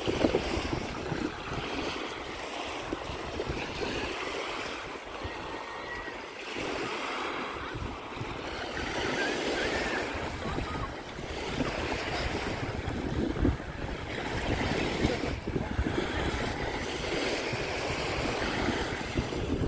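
Small Baltic Sea waves washing up a sandy beach and drawing back, a hiss that swells and fades every two or three seconds, with wind buffeting the microphone.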